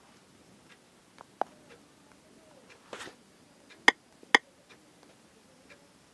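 Scattered sharp taps of fingers on a phone's touchscreen during typing, the loudest two close together about four seconds in.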